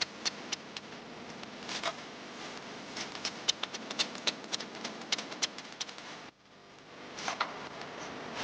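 Light, irregular clicking and tapping of bamboo pieces being handled and worked by hand, dozens of quick clicks, with a brief gap about six seconds in.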